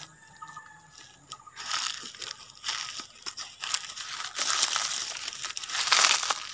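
Footsteps crunching and rustling through dry fallen leaves. The crackling starts about a second and a half in and grows louder, loudest near the end.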